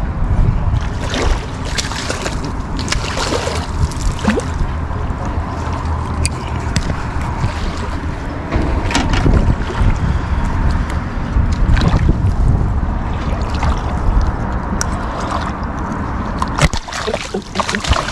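Wind rumbling on the microphone over lapping water, with a hooked snook splashing in the shallows, thrashing hardest near the end.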